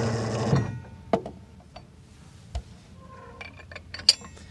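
A loud sustained sound stops about half a second in. Then a few separate metallic clicks and clinks, and a quick cluster of them near the end, from the windlass as the locking teeth between capstan and gypsy are wound down.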